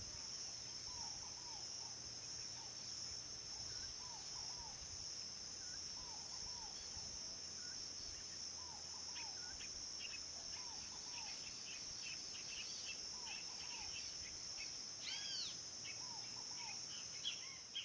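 Wetland ambience: a steady high-pitched insect chorus, with a short doubled bird call repeating every second or two. About halfway in, a flurry of higher chirps joins, with one louder rising-and-falling call near the end.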